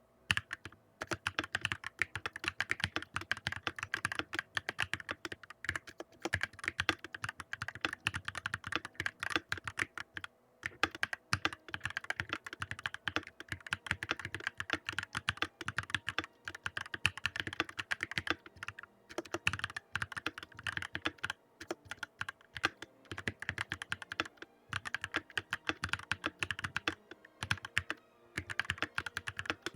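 Continuous fast typing on a Redragon Draconic Pro 61% mechanical keyboard: a dense run of keystroke clicks at about 60 words per minute, with a brief pause about ten seconds in.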